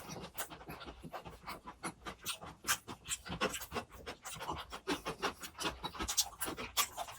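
Close-miked chewing of grilled pork belly: a quick, irregular run of wet mouth smacks and chewing clicks, several a second.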